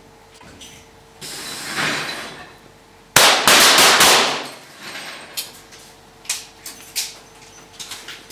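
Pistols being fired in a rapid-fire duelling series: a sudden, very loud burst of overlapping shots from several shooters about three seconds in, followed by scattered single sharp cracks. Before the burst a rushing noise swells and fades.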